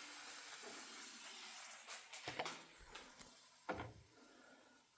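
Hot microwaved rice-and-beans pouch sizzling and hissing steam, fading away over the first couple of seconds, followed by a few light knocks.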